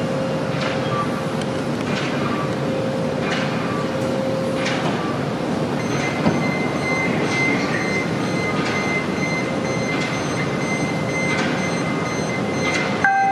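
CTA 7000 Series 'L' rail car running along the track: steady wheel-on-rail rumble with occasional clicks over rail joints and a steady electric whine, which is lower for the first few seconds and higher from about halfway through.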